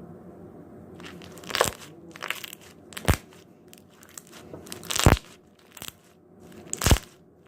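Slime being squeezed and played with by hand, giving a series of sharp wet pops and clicks, about six over several seconds, after a quiet first second.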